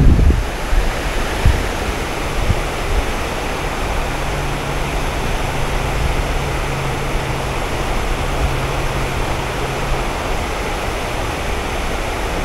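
A steady, even rushing hiss with no separate events, and a faint low hum that comes in for several seconds in the middle.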